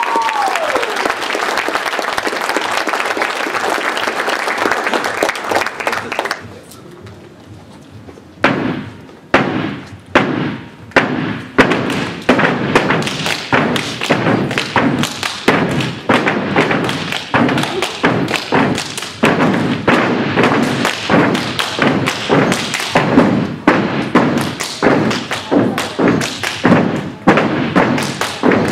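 Audience cheering, with a whoop near the start, that dies away about six seconds in; after a short pause a step team starts a stepping routine, sharp foot stomps on the stage floor and hand claps in a tight rhythm of two to three strikes a second.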